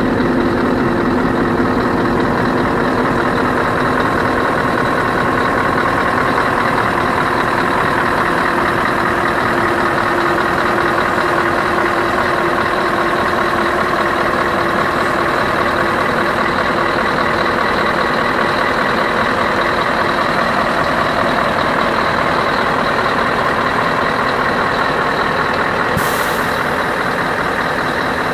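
Scania R560's V8 diesel idling steadily, heard close up, with a brief high hiss near the end.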